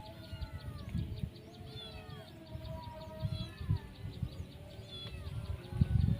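Animal calls outdoors: many short whistled calls gliding up and down in pitch, over a fast, even high ticking like insects, with irregular low rumbling from wind or handling on the microphone.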